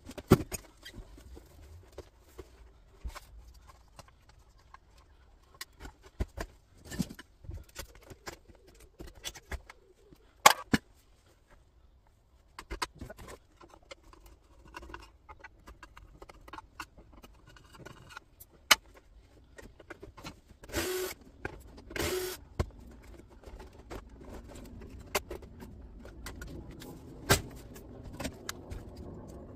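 Hand dismantling of a flat-screen computer monitor with a screwdriver: scattered clicks and knocks of plastic and metal parts being handled and prised. Two short, louder bursts come about two-thirds of the way through.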